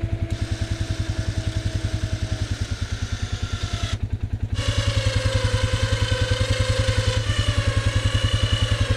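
Polaris Sportsman 570 ATV's single-cylinder engine idling with a steady, rapid pulsing. A steady whine runs over it and changes pitch after a brief break about four and a half seconds in.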